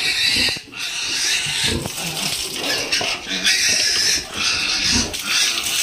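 Pigs in a backyard piggery squealing in repeated loud bursts, with grunts in between.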